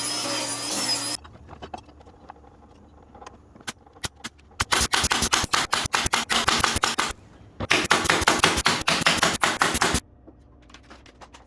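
Mechanical keyboard being typed on: a few scattered key clicks, then two long runs of very rapid, loud key clacking with a short pause between them, then a few quiet clicks again. A rasping noise cuts off about a second in, before the typing.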